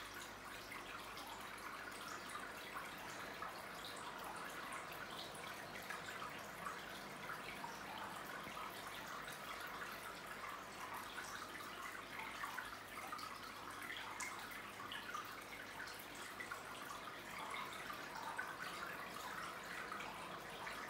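Aquarium filter's return water trickling and splashing steadily into the tank, a constant patter of small drips, over a faint steady hum.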